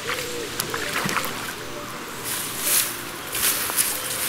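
Hooked mirror carp thrashing at the surface, splashing and sloshing the water as it is drawn in to the bank. Several splashes, the loudest a little past halfway and again near the end.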